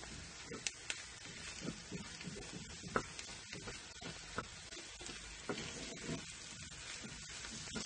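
Spinach and egg scramble sizzling in a frying pan while a wooden spatula stirs it, with scattered light clicks and scrapes of the spatula against the pan.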